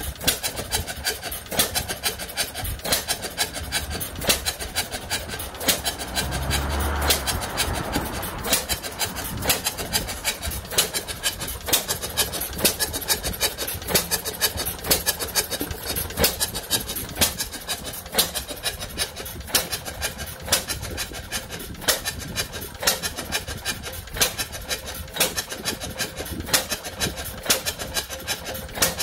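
1908 Madison 1 hp stationary engine running, its valve gear and ignition clicking and knocking in a quick, regular rhythm with heavier knocks among them. A brief rushing noise swells about seven seconds in.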